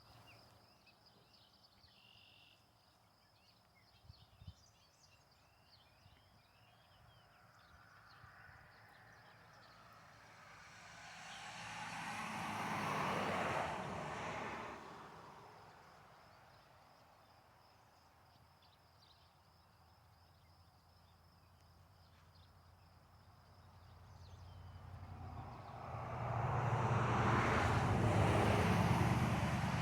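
Two motor vehicles passing by, one after the other, each swelling over a few seconds and then fading, the second one louder. Beneath them runs a steady high-pitched buzz, like an insect's.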